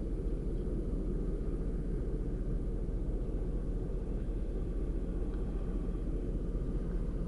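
A steady low rumble, even in level throughout, with no rise or fall.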